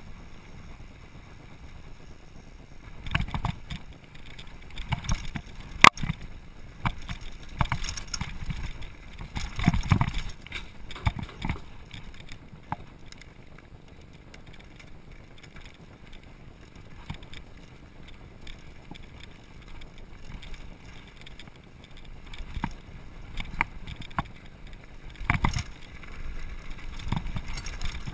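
Mountain bike running fast downhill over a rough dirt and rock trail, over a steady low rumble: the bike rattles and knocks over bumps and stones, with one sharp loud clack about six seconds in.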